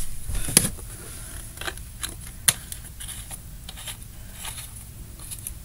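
Items being handled and sorted by hand: scattered light clicks and rustles, with a few sharper taps, the first about half a second in and another about two and a half seconds in.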